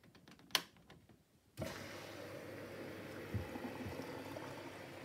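A few sharp clicks from the Miele Novotronic W715 washing machine's programme selector dial, then about a second and a half in the cold-water inlet valve opens and water rushes steadily into the machine as it starts to fill for the rinse. A couple of low thuds come from the machine while it fills.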